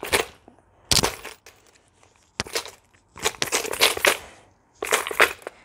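Coin bank shaken hard by hand in several bursts, the coins inside rattling, with one longer stretch of shaking in the middle.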